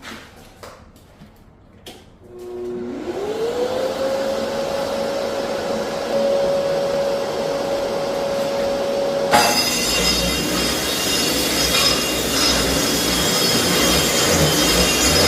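A few light clicks, then a dust extractor motor spins up with a smoothly rising whine and settles into a steady hum. About nine seconds in, a much louder, rough noise with a high whine cuts in suddenly and keeps going.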